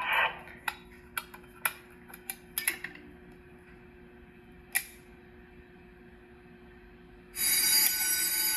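A few light clicks and taps over a low hum. About seven seconds in, the fire alarm suddenly sounds with a loud, steady, high-pitched ringing: a device under test has put the system into alarm.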